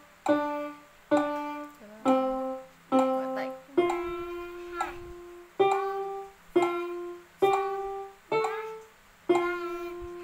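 Casio light-up electronic keyboard played one note at a time in a slow melody, picked out by a child sight-reading from the score. About ten single notes, each starting sharply and fading, with one note held longer about four seconds in.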